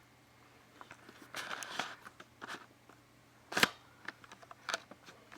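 A few sharp clicks and a brief rustle of handling, with the loudest click about three and a half seconds in.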